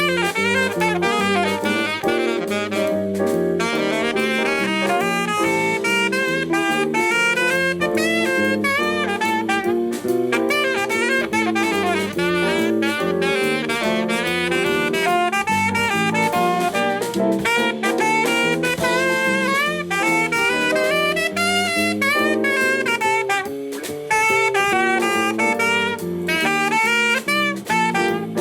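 Live band playing a jazz-style tune: a wavering lead melody over sustained chords, with a brief drop in level near the end.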